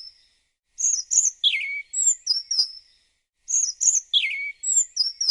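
A small songbird singing the same short phrase over and over, about every two and a half to three seconds: a quick run of high chirps with one note sliding down in the middle, each phrase about two seconds long with short silent gaps between.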